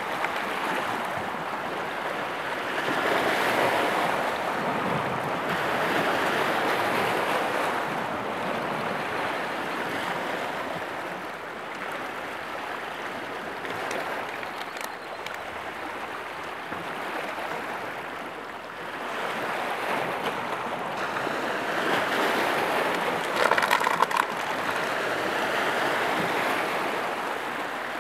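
Lake Erie waves washing and splashing over a flat rocky shoreline shelf, the water noise rising and falling in slow surges, with a brief louder splash near the end.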